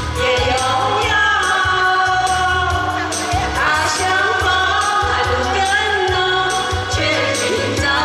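Two women singing a Mandarin song together into handheld microphones, over instrumental backing with a steady bass beat.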